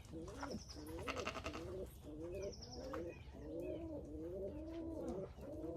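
Domestic pigeons cooing continuously, several birds overlapping in low, wavering, rolling coos.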